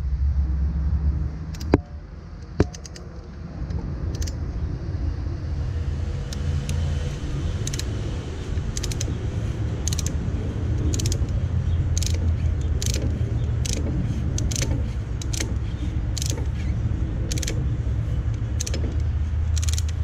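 Ratcheting brake caliper piston compressor tool clicking as its handle is worked, at about one click every half to one second, while it pushes the caliper piston back in. A steady low rumble runs underneath.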